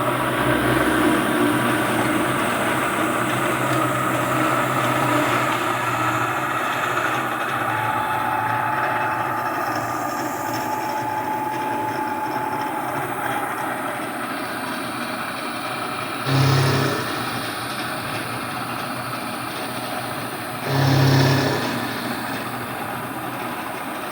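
1980 Shizuoka AN-S CNC milling machine running, its milling cutter cutting the profile of a 1018 carbon steel part with a steady machining noise. Two short, louder low hums break in, about 16 and 21 seconds in.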